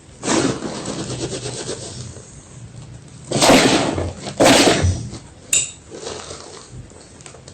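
White gym chalk being crunched and crushed: a stretch of fine crackling crunches, then two loud crunches a second apart near the middle, followed by a short click.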